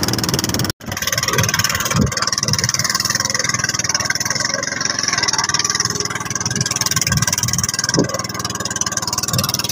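Small fishing boat's engine running steadily under way, with a few low thumps through it. The sound cuts out for an instant just under a second in.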